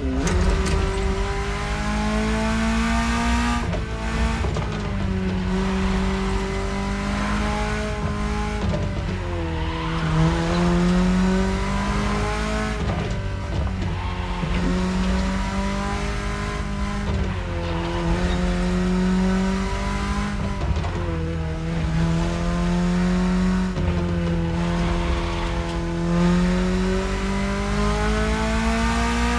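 BMW E30 engine pulling under load on a drive. The engine note climbs steadily and then drops sharply several times as the gears are shifted up or the throttle is lifted.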